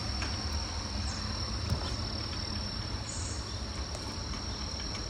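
Steady high-pitched insect chirring, one unbroken tone, over a low background rumble.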